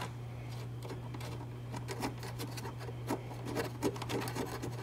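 A tail light mounting bolt being hand-threaded, with small irregular scrapes and ticks of fingers working the bolt against the trim. A steady low hum runs underneath, and a sharp click comes right at the start.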